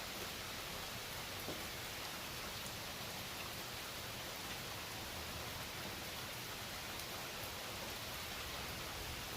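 Steady, even background hiss, with a faint click about a second and a half in.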